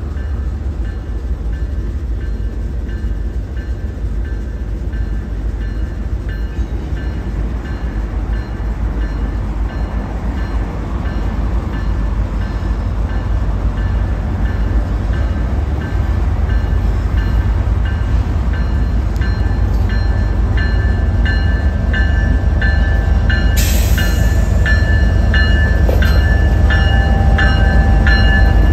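Multiple Union Pacific diesel-electric locomotives approaching and passing, a heavy engine rumble that grows steadily louder as the lead units draw level. A regular clicking sets in over the last several seconds.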